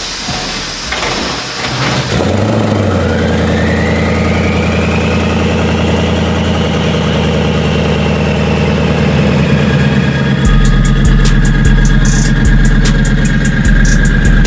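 Twin-turbo Ford Mustang's 5.0 V8 starting up: it catches about two seconds in and settles into an idle, with a whine that rises and then falls. About ten seconds in the idle gets louder and choppier, with sharp ticks.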